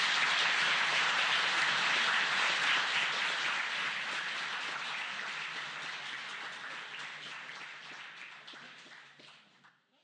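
Audience applauding, a dense even clapping that holds steady for the first few seconds, then fades out gradually and stops just before the end.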